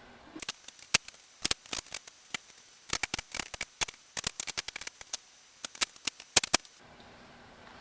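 Quick, irregular run of sharp clicks and taps, tools on a steel wheel rim as the bead of a new tractor front tire is worked onto it. The clicks stop a little before the end.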